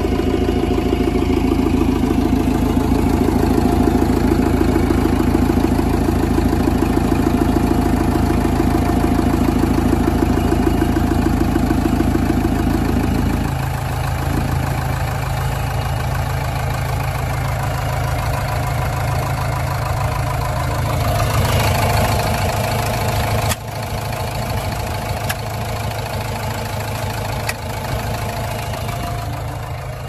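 A backhoe loader's diesel engine idles steadily. Its dense low throb thins out a little under halfway through, and there is a sharp click with a sudden drop in level about two-thirds of the way in.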